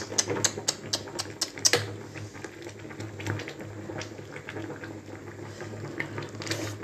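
Wild boar bone soup boiling hard in a large metal pot, a steady bubbling over a low hum. Through the first two seconds there is a quick run of about ten sharp clicks.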